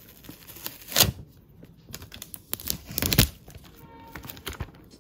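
Plastic shrink-wrap film being torn off a phone box and crinkling in the hand, with sharp tearing rips about a second in and again around three seconds in.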